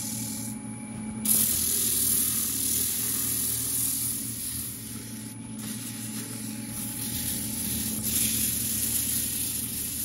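Wood lathe running with a steady motor hum while sandpaper is held against the spinning maple and epoxy resin vase, a steady hiss of hand sanding that starts about a second in.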